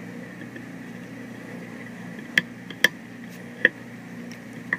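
Three sharp metallic clicks in quick succession a little past halfway, made as a wire piston pin clip is worked into the groove of a piston's pin bore with a small screwdriver, over a steady hum.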